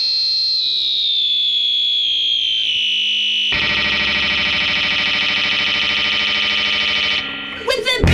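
Electric guitar played through distortion and effects: a high held tone that slowly slides down in pitch, then from about three and a half seconds a dense, buzzing wash of many tones. It drops away near the end with a few quick swoops in pitch.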